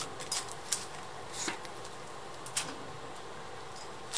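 Simple mountain bike suspension fork, with no sealed oil or air, being worked by hand at the handlebar, giving a few short clicks and knocks. Its inner tubes are freshly greased.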